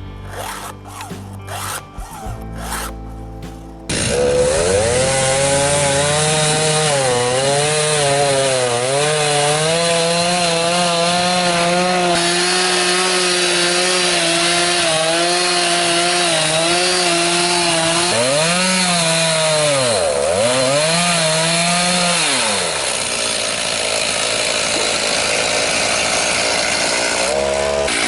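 A few seconds of music, then a Stihl Farm Boss two-stroke chainsaw with a 20-inch bar running at full throttle, cutting into a dead pine. Its pitch sags and recovers as the chain bites, twice dropping steeply under load about two-thirds of the way through, then turns rougher and a little quieter near the end.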